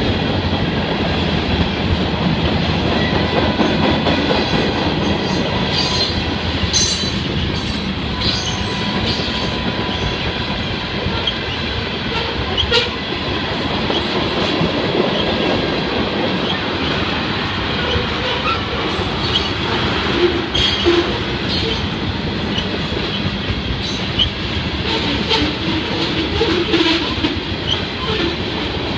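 A freight train of tank cars and covered hoppers rolling past at trackside: a steady rumble of steel wheels on rail, with a scatter of short high squeaks and clicks.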